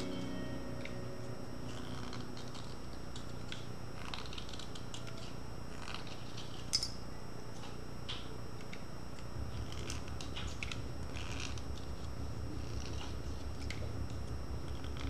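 Short, scattered scraping strokes of a blade shaving the wood and charcoal of a pencil by hand, with one sharp click about halfway. Underneath runs a low, fast-pulsing rumble that grows stronger past the middle.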